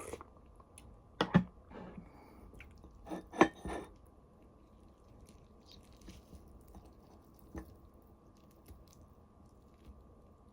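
A person eating, chewing and biting, with clusters of sharp clicks about a second in and around three and a half seconds in, the loudest, and a single click near the end.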